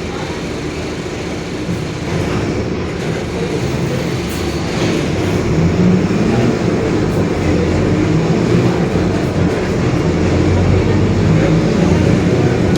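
Mercedes-Benz OF-1721 city bus under way, the diesel engine and drivetrain running with a steady drone from the rear differential, which the uploader describes as growling. The noise grows louder about two seconds in and again about six seconds in as the bus speeds up.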